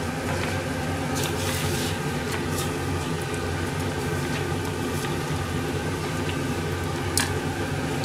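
Miso soup being ladled from a stainless steel pot into a bowl, with a few light clinks of the ladle, over a steady mechanical hum.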